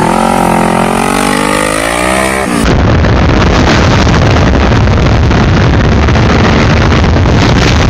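A motorcycle engine revving as the bike pulls away, its pitch rising and falling through the gears. About two and a half seconds in, it cuts abruptly to a steady, loud rush of wind and engine rumble recorded on board a green Kawasaki Ninja sportbike at speed.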